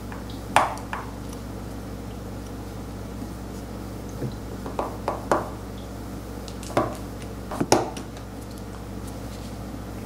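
Steel seal-carving knife cutting into a stone seal face in short, separate scraping strokes. There is one stroke about half a second in, a quick run of several around the middle, and two more near the end, over a steady low hum.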